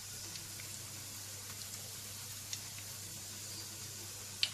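Flour-coated chicken pieces frying in shallow oil in a frying pan: a steady sizzle with a few sharp pops and crackles, the clearest near the end.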